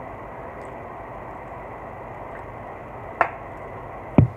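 Steady background hum through a quiet moment of eating, broken near the end by two sharp knocks a second apart, the second louder and deeper.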